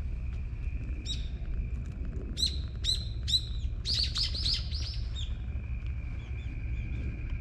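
A bird calling: a string of short, sharp chirps that each drop in pitch, coming quicker and louder about four seconds in, over a steady low rumble.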